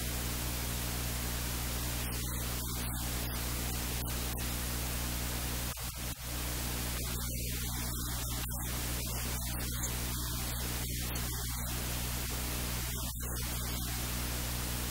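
Steady static hiss with a low electrical mains hum underneath, unchanging throughout: recording-chain noise that covers any kitchen sounds.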